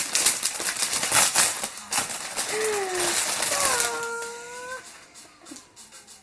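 Plastic doll packaging being opened and handled: a dense run of crinkles for the first couple of seconds, then a drawn-out, gliding vocal 'ooh' from a voice.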